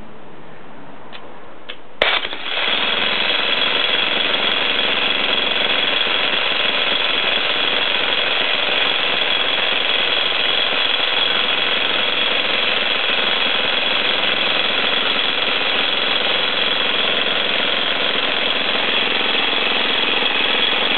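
A 60 lb jackhammer breaking up a concrete slab. It starts suddenly about two seconds in and runs steadily without a break.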